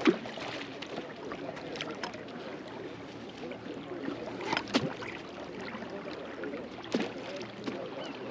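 River current rushing and lapping around a wading angler's legs, a steady watery noise with a few short knocks.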